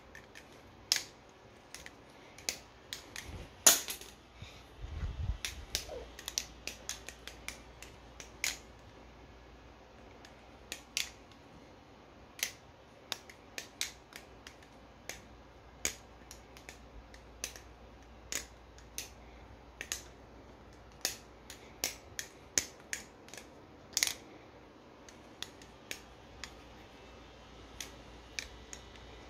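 Nautilus-clone balisong trainer being flipped, its metal handles clacking against each other and the pivot in quick, irregular clicks, sometimes a few close together. One clack about four seconds in is louder than the rest.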